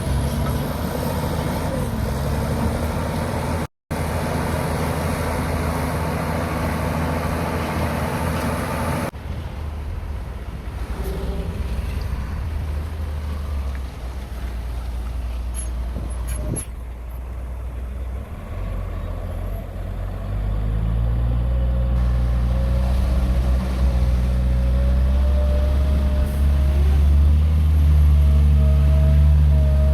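Diesel engines of heavy earthmoving machinery running and working, cut together with a brief dropout and an abrupt change in sound. The engine note grows louder and heavier in the last third.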